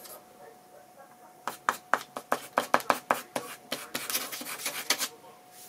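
Pen nib scratching across sketchbook paper in quick hatching strokes, about four or five a second, then a denser scratchy rustle lasting about a second near the end.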